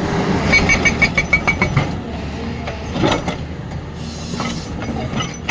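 Excavator-mounted hydraulic rock breaker hammering in a fast run of blows, about seven a second with a metallic ring, that stops before two seconds in, followed by a single knock about three seconds in. The excavator's diesel engine runs steadily underneath.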